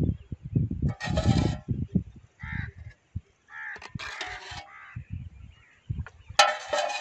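Several harsh animal calls, over an uneven low rumble.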